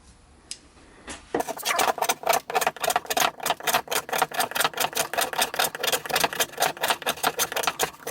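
Folding knife blade making rapid, evenly repeated cutting strokes, about six a second, as an edge-retention test. It starts about a second and a half in after a faint click or two.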